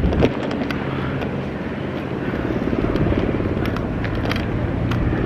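Bicycle riding along a paved path: steady rolling noise with scattered light rattles and clicks.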